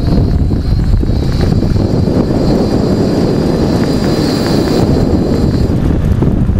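Wind rushing over the microphone of a camera mounted on a moving electric bike, mixed with tyre and road noise. A loud, steady rumble with a faint high-pitched whine that comes and goes.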